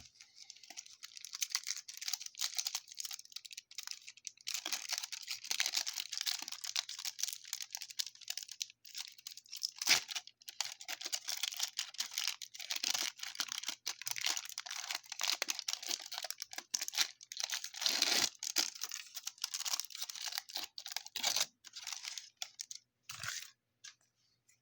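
Baseball card pack wrapper being torn open and crinkled, an irregular run of crackling and tearing with sharp crackles, loudest about ten seconds in.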